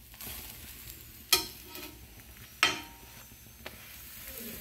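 Metal slotted spatula clinking against a tawa twice, about a second and then two and a half seconds in, with a lighter tap later, over a faint steady sizzle of a paratha cooking on the hot griddle.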